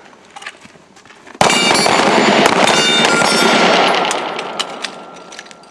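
Handgun fire: many shots in quick succession, packed together into a dense loud string, starting a little over a second in and dying away over the last couple of seconds, with a thin ringing tone lingering as it fades.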